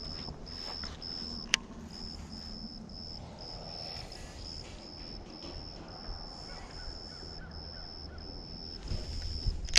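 A high-pitched chirp repeating evenly about twice a second over a low outdoor rumble, with one sharp click about a second and a half in.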